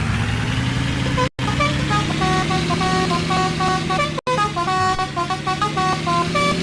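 A bus's multi-tone 'telolet' horn playing a quick tune of short stepping notes, starting about a second in, over the bus's engine running underneath. The sound cuts out completely twice for a moment.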